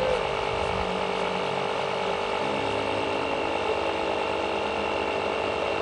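Air compressor running steadily, pumping air through a tire valve into a half-full PVC-pipe shower tank to pressurize it; its low hum changes pitch about two and a half seconds in.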